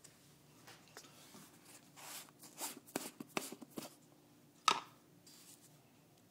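Handling sounds while baby-bird hand-feeding formula powder is measured out: a run of short scrapes and light clicks, then one sharp click a little over halfway through.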